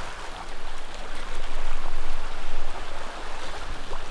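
Sea surf washing and splashing, with loudness that swells and falls, over a low rumble of wind on the microphone.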